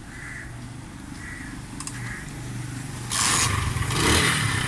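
Kick-started motorcycle engine running. About three seconds in the sound turns suddenly louder and hissier.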